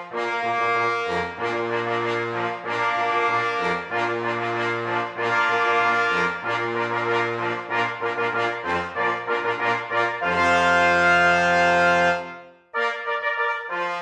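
Brass music of trombones and trumpets playing sustained chords. About ten seconds in, a long, loud chord is held. It dies away after about two seconds, and the music starts again just after.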